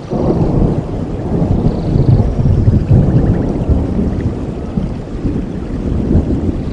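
Low rolling thunder rumbling, swelling and easing over several seconds, over steady rainfall.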